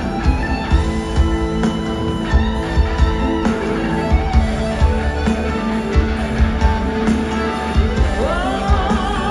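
Live pop band playing an instrumental passage: drums on an even beat of about two a second under guitar and held horn and keyboard notes. Near the end a singer's voice slides up into a long, wavering note.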